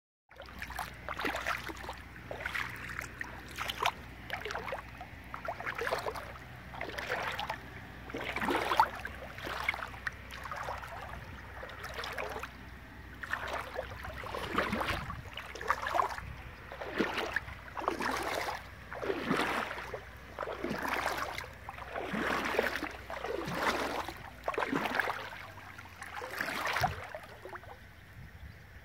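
Footsteps wading through shallow water, a swishing splash with each step, about one step a second.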